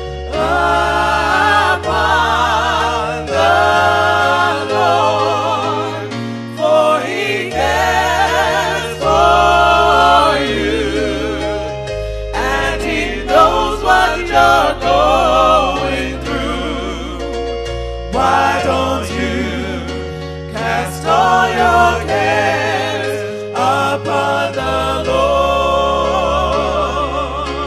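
Gospel worship music: singing voices with a wide vibrato over held low notes that change every couple of seconds.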